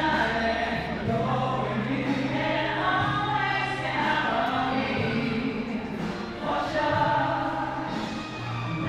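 Choral music: voices singing long held chords over a sustained bass note that shifts pitch a few times.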